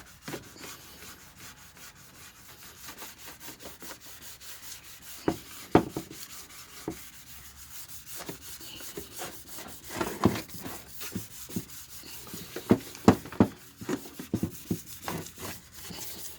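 2000-grit sandpaper wet sanding a plastic headlight lens by hand: a steady scratchy rubbing with irregular short knocks throughout, the loudest of them near the middle and again toward the end.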